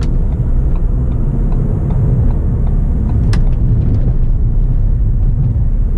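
Steady low rumble of road and engine noise inside the cabin of a moving Ford New Fiesta, with a few faint clicks and one sharper click about three seconds in.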